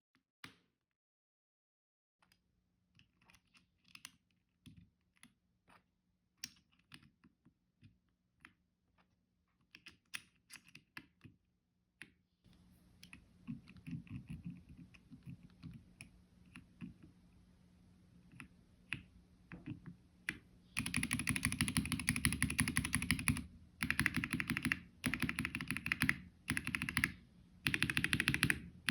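Typing on a Wooting 60HE keyboard fitted with Geon Raptor HE (Hall-effect magnetic) switches, PBT keycaps, a polycarbonate plate and a Tofu60 Redux case. Scattered single keystrokes at first, steadier typing from about the middle, then loud runs of very fast key presses broken by short pauses near the end.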